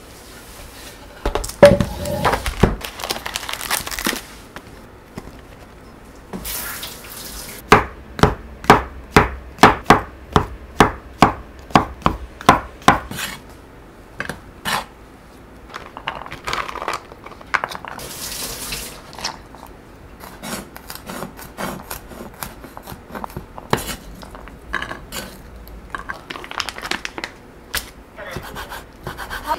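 A wooden cutting board clattering down on the counter, then a cleaver slicing button mushrooms on the wooden board: a steady run of knife knocks, about two to three a second, for some five seconds. After that come scattered knocks and rustles of kitchen handling.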